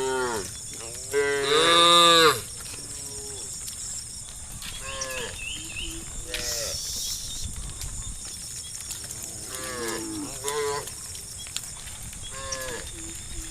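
Cows in a herd mooing: a string of separate moos from several animals, the loudest and longest about a second in, the rest shorter and fainter.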